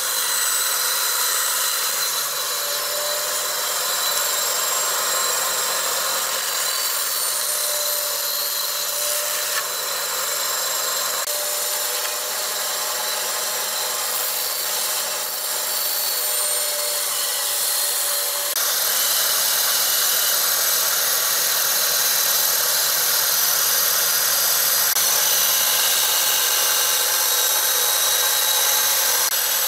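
Band saw running and cutting through thick stacked pallet boards: a steady motor whine with the hiss of the blade in the wood. The sound shifts abruptly twice, about a third and two-thirds of the way through.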